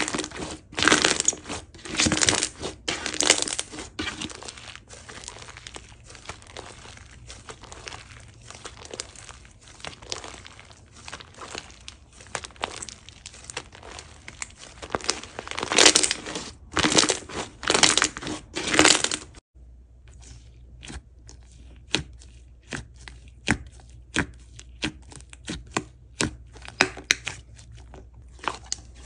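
Hands squeezing and kneading white fluffy slime, which crackles and pops in dense runs with several loud bursts. About two-thirds through, the sound changes abruptly to softer, sparser pops and clicks as a finger pokes and presses a light-green slime in a tub.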